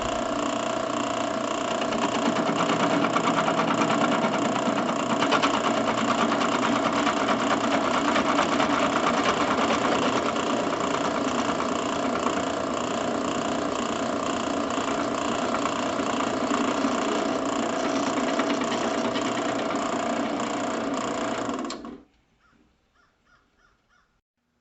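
Drill press driven by a treadmill motor through a belt, running steadily with a whine; it gets a little louder about two seconds in and cuts off suddenly near the end.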